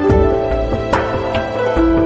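Soft background music with held notes over a low bass.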